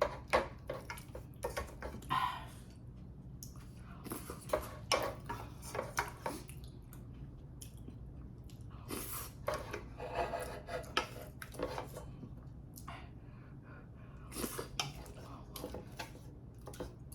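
Eating utensils clicking and scraping against bowls and dishes at irregular intervals, with soft eating sounds, over a steady low hum.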